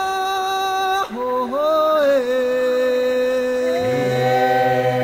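Bunun vocal music: several voices sing long held notes in harmony. About a second in one note breaks off and a new one slides up and settles, and a lower voice joins near the end.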